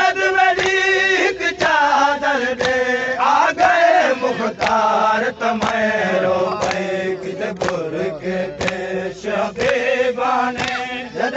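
Men chanting a noha, a Shia mourning lament, in chorus. Sharp slaps of chest-beating (matam) keep time, roughly one to two a second.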